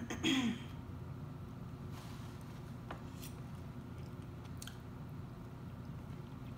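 A person chewing a forkful of loaded baked potato, close to the microphone. A short voiced 'mm'-like sound in the first half second, then soft mouth clicks and smacks over a steady low hum.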